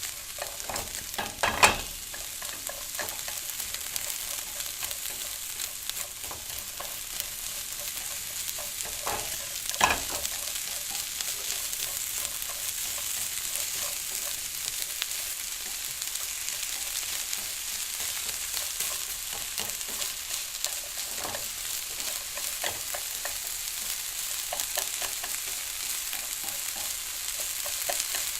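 Onions frying in a pan: a steady sizzle with fine crackling. Two louder knocks come about a second and a half in and again around ten seconds in.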